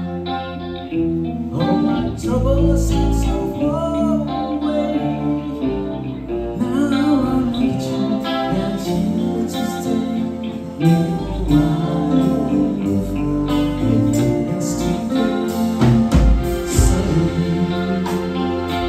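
A four-piece band playing live: electric guitar, electric bass, keyboard and drum kit, with singing over it. The band gets louder about eleven seconds in, with the drums hitting harder.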